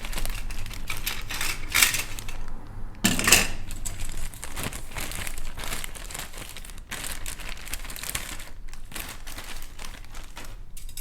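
Plastic bag crinkling and rustling in irregular crackles as a plastic model kit parts sprue is handled.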